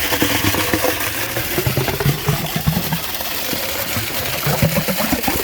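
Engine of a concrete pump truck running steadily while concrete is pumped, with many short clicks and knocks over the engine noise.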